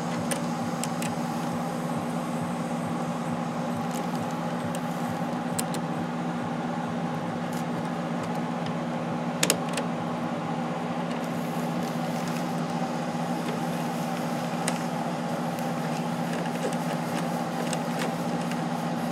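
A steady machine hum, with scattered light clicks and taps of metal parts being handled; the loudest click comes about nine and a half seconds in.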